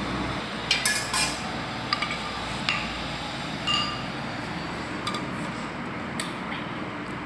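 A kitchen knife clinking and tapping against a stainless steel tray while watermelon is cut: a series of irregular metallic clinks, a few of them ringing briefly, loudest in the first couple of seconds.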